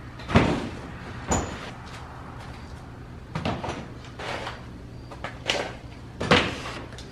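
Plastic produce crates being set down on a wooden trailer bed: about six separate knocks, the loudest near the start and near the end.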